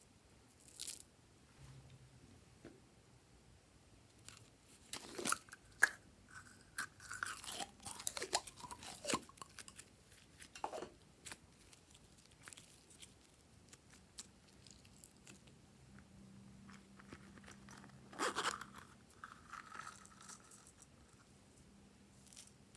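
Glossy slime being kneaded and pressed by hand, making faint, irregular sticky crackles, pops and crunches. They come in flurries, busiest a few seconds in and again near the end.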